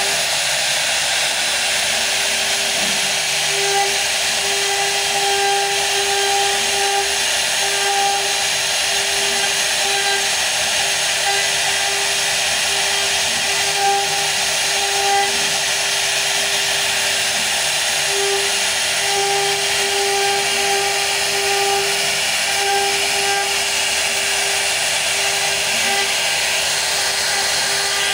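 CNC router spindle running steadily as it carves wood: a continuous whine that swells and fades over a steady cutting hiss.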